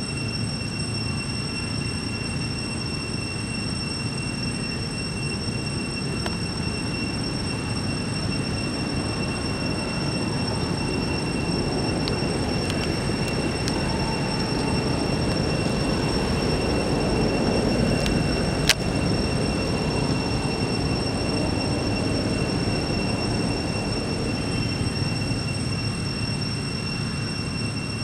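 Steady low rumbling noise that swells a little in the middle, with faint steady high-pitched tones over it and a single sharp click about two-thirds of the way in.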